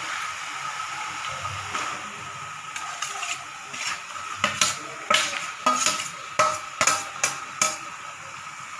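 Onion-tomato masala sizzling in an aluminium kadai as marinated chicken pieces are tipped in. Then a perforated steel skimmer clinks and scrapes against the pans about ten times, starting about halfway through, as the chicken is scooped in and stirred.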